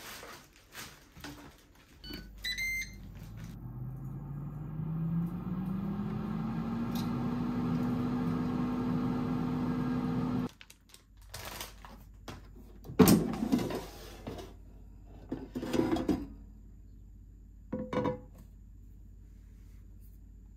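Ninja air fryer beeping as it is switched on, then its fan spinning up with a rising hum and running steadily before stopping suddenly about halfway through. Afterwards come several hard knocks and clunks of the basket being handled, the first the loudest.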